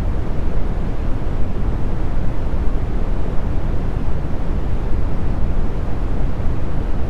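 Brown noise: a steady, deep rumble of hiss with most of its weight in the low end and little treble, unchanging throughout.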